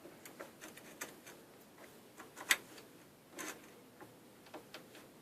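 A few scattered light clicks and taps of metal clamp parts being handled on a workbench, the sharpest about two and a half seconds in.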